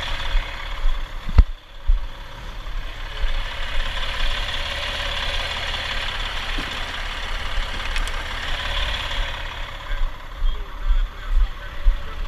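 Heavy truck diesel engine idling steadily, with one sharp knock about a second and a half in.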